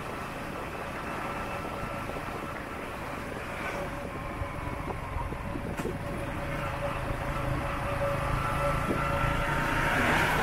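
Motorbike riding in town traffic: engine and road noise run steadily with a constant hum, growing louder near the end as oncoming vehicles pass close by.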